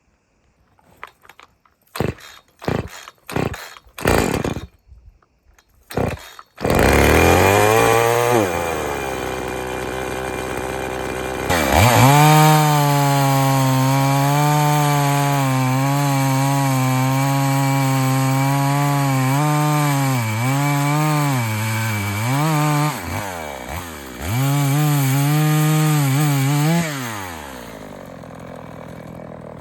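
EFCO two-stroke chainsaw being cold started with its pull cord: several quick pulls, then the engine catches about seven seconds in. It runs, settles lower, then holds a higher steady speed with a few dips, and drops back to a quieter idle near the end.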